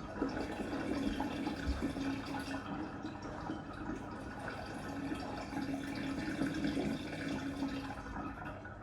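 Samsung WW6800 front-loading washing machine mid-cycle: water sloshing and splashing in the turning drum, with a steady hum in two stretches of a second or two each.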